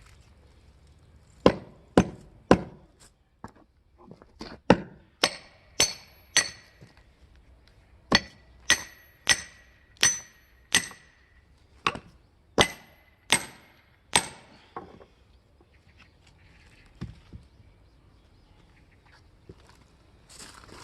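Firewood being split by hand: about twenty sharp strikes, roughly two a second with a short pause partway through. Many of them ring with a clear, clinking tone. The strikes stop about fourteen seconds in, followed by a couple of faint knocks.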